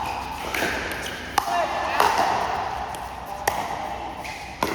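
Pickleball paddles hitting a plastic ball in a rally: a string of sharp hits, about five, irregularly spaced up to a second and a half apart, with players' voices faintly behind.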